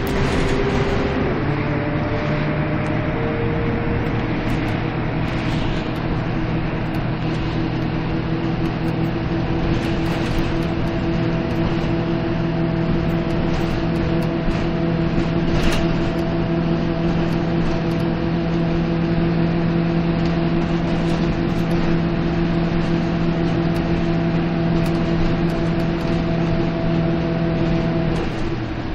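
Karosa B931 city bus's diesel engine heard from inside the passenger cabin while driving, with road noise. Its drone drops in pitch about a second in, then holds at a steady pitch, and eases off just before the end.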